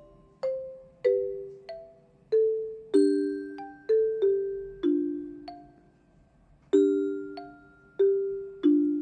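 Background music: a slow, gentle melody of bell-like struck notes, often two at a time, each ringing out and fading before the next.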